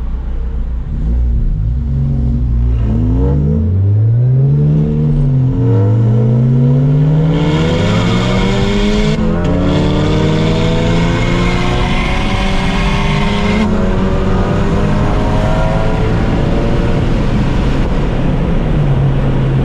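Supercharged Honda Civic Si four-cylinder engine accelerating hard: the revs climb, drop briefly at a gear change a few seconds in, then climb steadily for about ten seconds before levelling off. A high whine and hiss rides over the engine through the middle of the pull.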